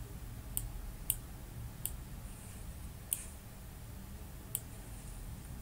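Computer mouse clicking: about five sharp single clicks, irregularly spaced, over a low steady background hum.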